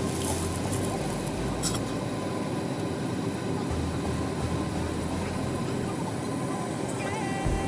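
Steady airliner cabin noise with the engines running: an even roar and hiss over a low, uneven rumble.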